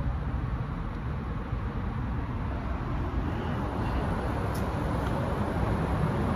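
Steady low rumble of background noise with no clear pitch, and two faint clicks about halfway through.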